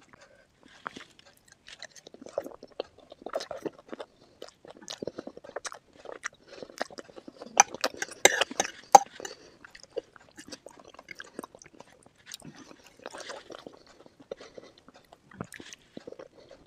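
Close-miked eating sounds: chewing and biting into spicy chicken feet curry and Maggi noodles, with wet clicks and crunches, the loudest bites coming about eight seconds in.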